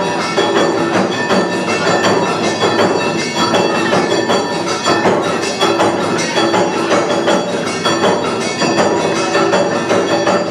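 Awa Odori dance music played loudly without pause, a percussion-led festival ensemble with ringing metallic strikes and wooden clacks over a steady, driving rhythm.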